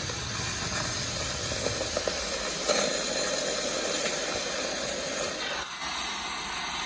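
Oxy-fuel cutting torch hissing steadily as it cuts a steel plate.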